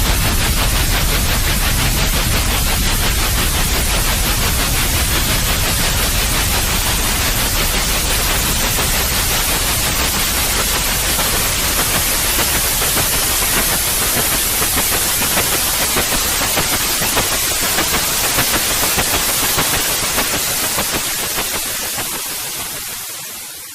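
Steady white noise, an even hiss across all pitches, fading out over the last few seconds.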